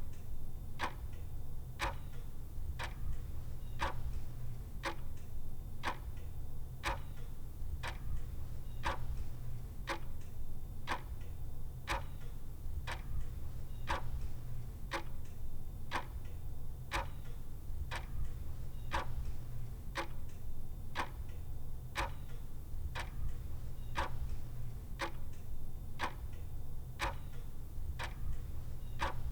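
Clock ticking steadily, about two ticks a second, over a faint steady low hum.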